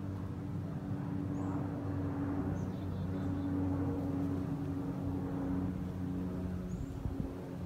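A steady low engine hum holding a few even pitches, with a handful of faint, brief high chirps over it.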